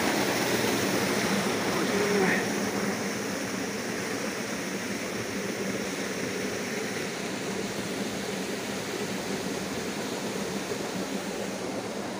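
Steady rush of water running and falling down below, slowly growing fainter.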